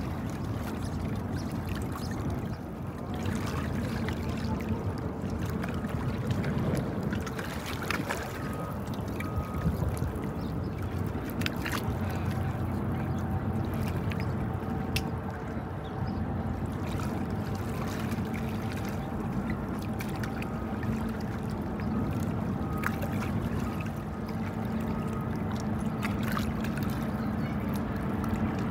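Harbour ambience: a steady low rumble of vessel engines, with faint steady tones and water splashing.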